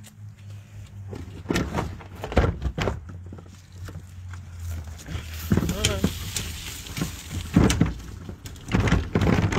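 Plastic wheelie bin being handled and tipped back: several knocks in the first few seconds, then from about halfway its wheels rolling and rattling over the ground, with more knocks.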